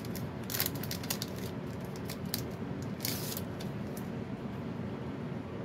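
Thin clear plastic sleeve rustling and crinkling as a paper savings-challenge booklet is worked out of it by hand. There are a few light clicks and rustles, then a longer rustle about three seconds in, over steady low background noise.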